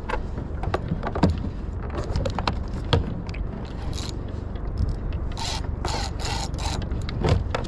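Saltwater spinning reel cranked against a hooked fish, with scattered clicks, knocks and scrapes from the tackle and kayak over a steady wash of water and wind.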